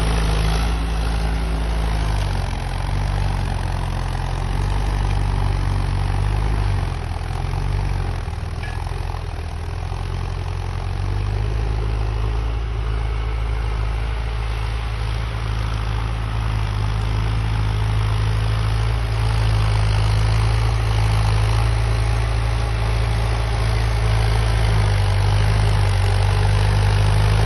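Indo Farm tractor's diesel engine running steadily, its note shifting about eleven seconds in to a stronger, steadier hum; this is the engine that is blowing black smoke.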